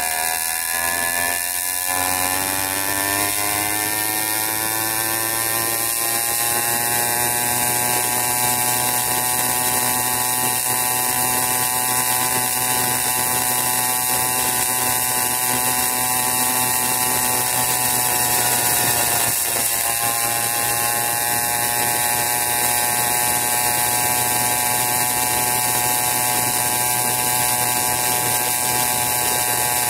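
80cc Wildcat PK80 minibike's small single-cylinder engine revving up under acceleration over the first several seconds, then running at a steady high buzz at cruising speed. There is a brief dip in revs about two-thirds of the way through.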